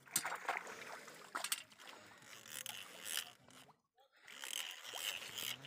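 Water splashing and sloshing at the river's edge as a hooked fish is brought to the bank by hand, with several sharp splashes. The sound drops out briefly about four seconds in.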